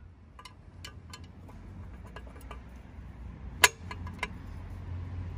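Light metallic clicks and ticks of a spanner working on a lambda (oxygen) sensor as it is tightened into an exhaust manifold, with one sharp clink about three and a half seconds in and another soon after, over a low steady hum.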